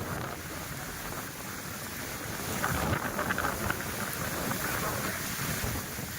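Steady heavy rain falling, with wind rumbling on the microphone.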